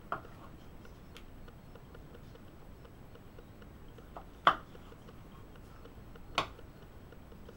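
Knife blade knocking on a wooden cutting board while cherry tomatoes are cut: a few separate sharp knocks, the loudest about four and a half seconds in.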